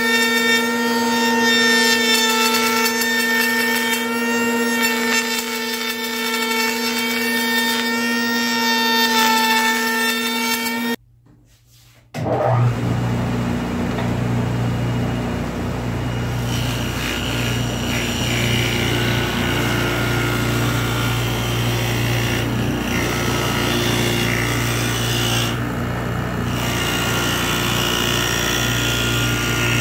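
A router in a router table runs with a steady high tone as half-inch plywood is fed past its bit, cutting a tongue-and-groove joint. It cuts off abruptly about eleven seconds in, and after a second's gap a Steel City table saw runs with a low steady hum, ripping a narrow strip of wood.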